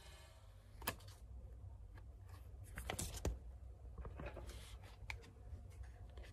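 Plastic food wrapper crinkling and a clear plastic tray clicking as a wrapped egg-yolk pastry is slid out of its packet and its tray handled: scattered sharp crackles, loudest about a second in and around three seconds in.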